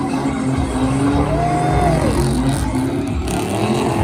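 Drift cars' engines held at high revs over tyre noise as they slide sideways, one engine letting off about two seconds in.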